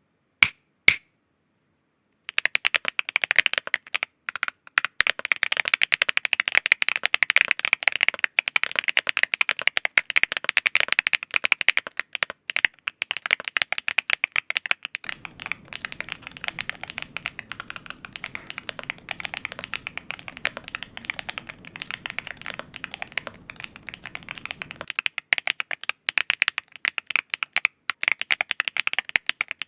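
Yunzii AL80 mechanical keyboard with Cocoa Cream V2 linear switches and PBT keycaps being typed on fast: two single key clacks, a short pause, then a dense, continuous run of keystrokes.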